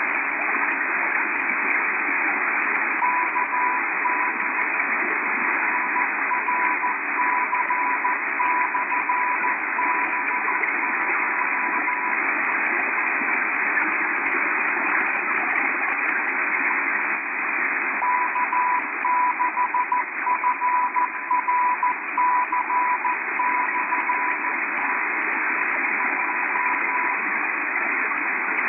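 K6FRC/B2 10-metre amateur radio beacon on 28.250 MHz, received in upper sideband on an Airspy software-defined receiver: a steady hiss of band noise with a Morse code tone keyed on and off. The tone sends in two runs of about nine seconds each, with a pause of about six seconds between them.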